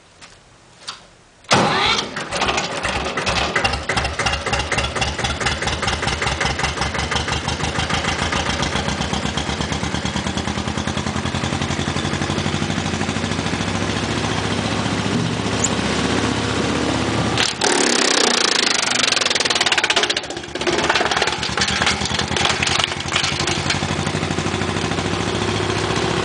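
Allgaier Porsche AP 17 tractor's single-cylinder air-cooled diesel starting about a second and a half in, then running with a steady, even pulse. From about 17 to 20 s a louder rushing noise rises over the engine.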